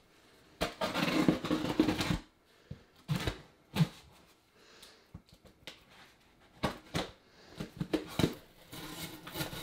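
A folding knife slicing through packing tape on a cardboard box: a rasping cut lasting about a second and a half, then scattered taps and knocks of the box being handled, and a second stretch of cutting near the end as the flap is opened.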